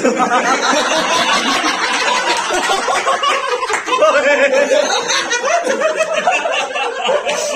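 A group of men laughing and chuckling together, several voices overlapping without a break.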